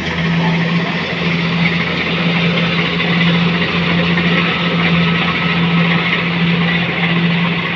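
Engine of a rice harvesting machine running steadily under load, a loud constant hum with a dense clatter of noise over it.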